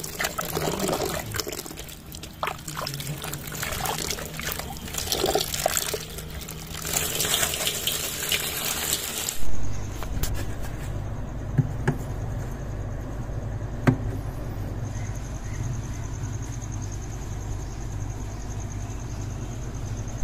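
Water sloshing and splashing as a hand stirs and rubs mixed fruit in a tub of washing water. About nine seconds in it gives way to a steady low refrigerator hum, with a couple of light knocks.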